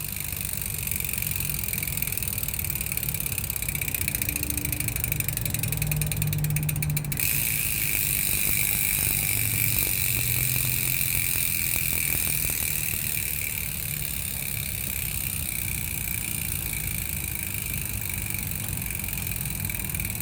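Aeroic AM-8.5 rear bicycle hub freewheeling: six pawls clicking over a 72-tooth ratchet so fast that they run together into a steady high buzz. It is not too loud, yet not quiet either.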